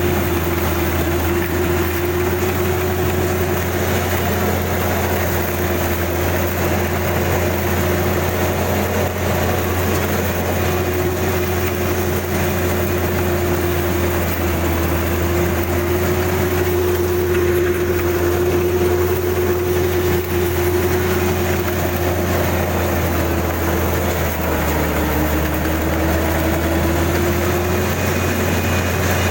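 Kubota DC-35 combine harvester running steadily, a constant mechanical drone whose pitch sags slightly for a few seconds near the end.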